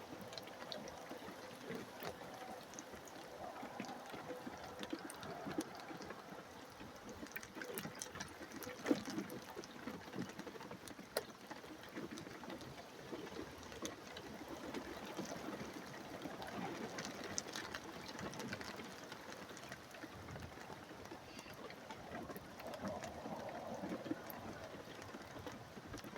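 Faint dripping and trickling of rainwater, with scattered small ticks over a low, even background hiss.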